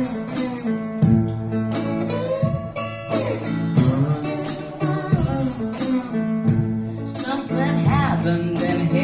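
One-woman band playing a guitar intro, with sharp percussion hits keeping a steady beat about twice a second and some sliding notes near the end.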